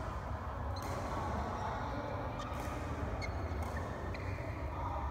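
A steady low hum from the badminton hall, with a few short squeaks and ticks from players' court shoes on the court mat.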